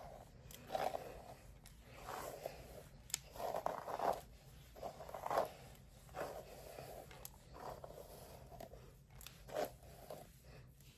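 Rustling and scraping of a wig and hair being handled and adjusted, in irregular bursts every second or so with a few sharp clicks.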